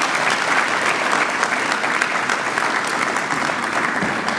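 Audience applauding: dense, steady hand clapping from a large crowd, beginning to thin out near the end.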